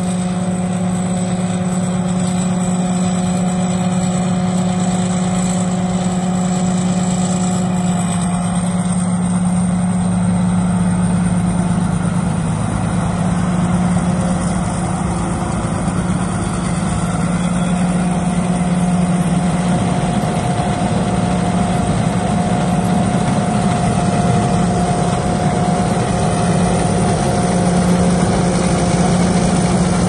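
Tracked rice combine harvester running steadily while harvesting, its engine and machinery making a continuous drone that grows slightly louder near the end as it comes closer.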